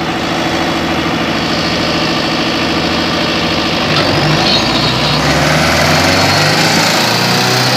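Tractor diesel engines running hard under load in a tug-of-war pull. About four seconds in the engine note drops lower and grows louder as one engine labours, with black exhaust smoke.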